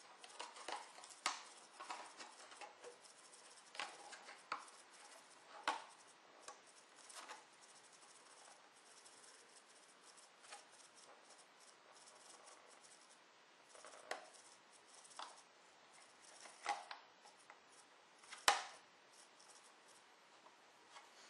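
Scattered light clicks and knocks as the plastic canopy of an Esky Honey Bee King V3 RC helicopter is handled and pushed onto its frame, the sharpest click near the end.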